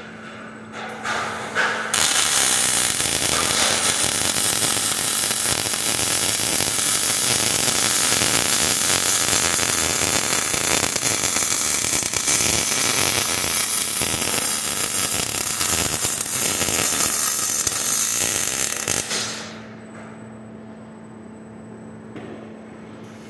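Robotic MIG welding arc on a steel truss joint, crackling and sizzling steadily. It starts with a few short sputters about a second in and cuts off when the weld ends, about four seconds before the end. A steady low hum of the equipment is left.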